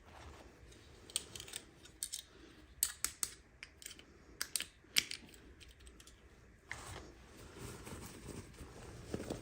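Sharp clicks and taps of small plastic pieces being handled during a toy unboxing, a dozen or so in quick, irregular succession. After that comes a softer, steady rustle of packaging.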